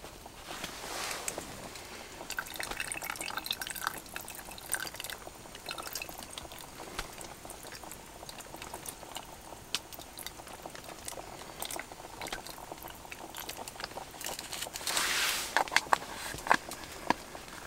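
Milk poured from a small paper carton into a metal camp pot, with light clicks and rustles of handling. Near the end, chopsticks stir the pot, with a short hiss and several sharp clicks against the metal.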